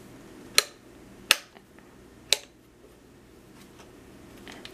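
Forward/off/reverse toggle switch on an Eastwood 21111 bead roller motor drive's control box being flipped, three sharp clicks roughly a second apart. The motor does not run.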